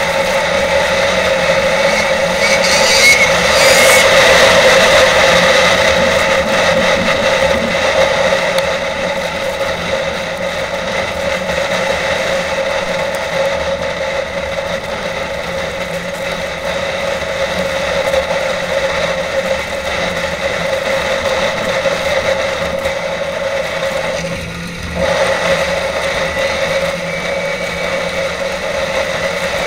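Snowmobile engine running at trail speed, heard from the rider's seat. The engine note swells a few seconds in and dips briefly about 25 seconds in before picking back up.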